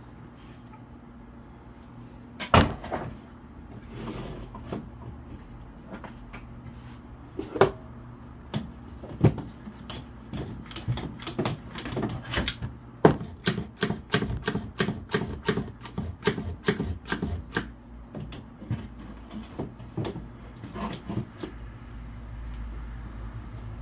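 Handling noises on a wooden workbench: a few sharp knocks of wood and tools set down, and in the middle a quick run of clicks and taps as a red trigger bar clamp is worked onto a board. A faint steady low hum runs underneath; the circular saw is not running.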